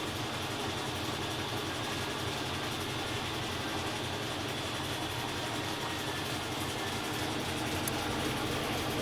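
GE LVGE 1535 15 kg washing machine running its spin cycle, a steady whir with a faint high tone.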